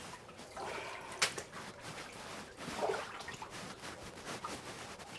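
Water splashing and trickling in a flooded mine tunnel, with one sharp click about a second in.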